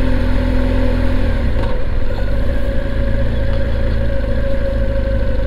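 BMW R1200GSA motorcycle's boxer-twin engine running as the bike rides slowly through town traffic. Its engine note changes about a second in.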